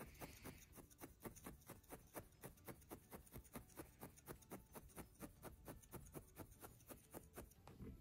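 Felting needle jabbing repeatedly through loose wool into a felting pad: a faint, quick, even tapping at about four stabs a second.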